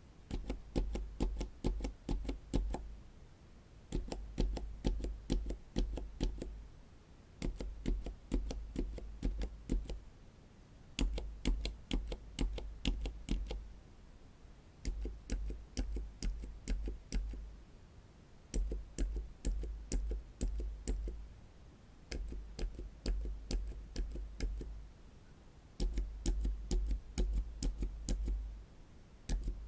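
Silent mechanical keyboard switches pressed in eight sets of rapid, damped clicks, each about three seconds long with a short pause between sets. The switches are Cherry MX Silent Red and Black types, then Gazzew Bobagum silent linear switches.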